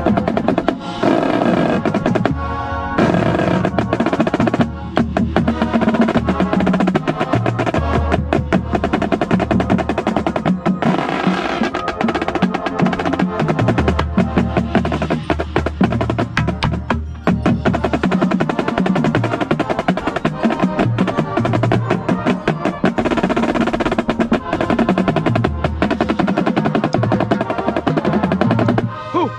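Marching drumline playing, heard close to a snare drum: rapid snare strokes and rolls over low bass-drum notes.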